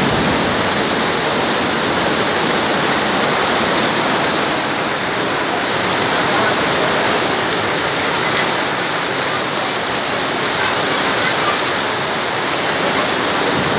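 Heavy rain pouring down, a loud, steady, unbroken hiss.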